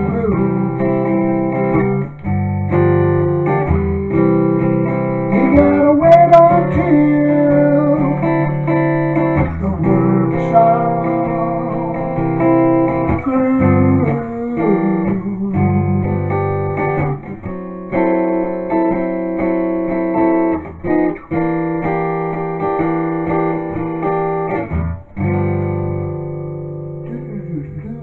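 Jasmine steel-string acoustic guitar playing a blues instrumental outro, strummed chords mixed with single-note runs. It closes on a final chord, struck about 25 seconds in, that rings out and fades.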